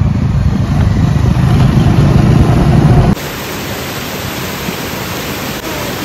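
Motorcycles riding on a road, a loud low rumble of engines and wind on the microphone; about three seconds in it cuts off suddenly to the steady rushing of a waterfall.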